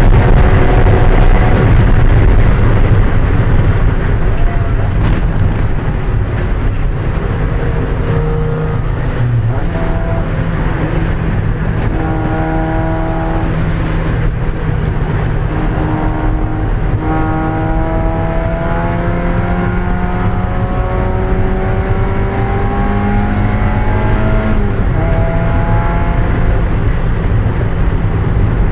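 A 1995 Mazda Miata's four-cylinder engine running hard on track, heard from inside the car, with its pitch stepping up and down several times. Through the middle it makes one long, slow climb lasting several seconds, then drops suddenly. A constant loud low noise runs underneath.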